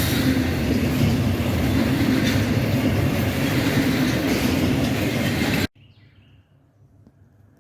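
A freight train passing close by, with a steady, loud noise of wheels on rail. It cuts off abruptly near the end, leaving only faint background with a brief high chirp.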